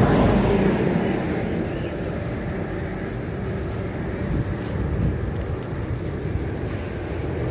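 A heavy truck passing close by, its engine and tyre noise loudest in the first second, then easing into steady road traffic noise.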